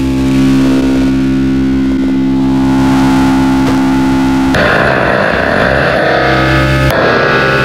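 Big metal spring, amplified and run through distortion effects, making a loud, steady distorted drone of held pitches. About four and a half seconds in, a further distortion is blended in and the drone turns harsher and noisier; it shifts again near the end.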